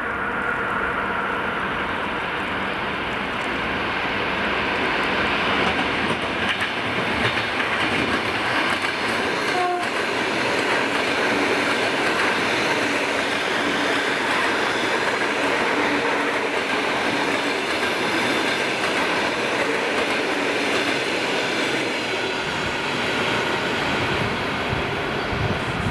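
ЭП2Д electric multiple unit running through a station: steady rumble and clatter of its wheels on the rails, fairly loud throughout.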